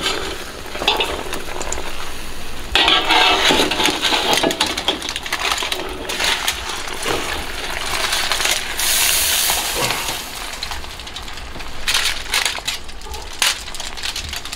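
Metal tongs and a spatula clinking and scraping against a wire rack, a wok and a foil tray in a run of irregular clicks and rattles, as smoked pig intestines are lifted off the rack.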